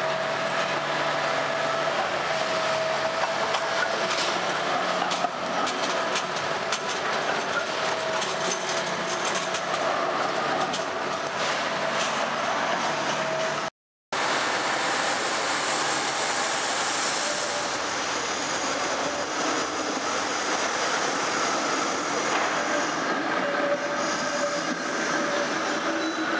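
Green BVB Basel tram rolling over curved street track, its steel wheels squealing in a steady high tone above the rumble of the wheels on the rails. The sound breaks off for a moment about halfway, then the rolling noise of a tram goes on, with fainter squeal near the end.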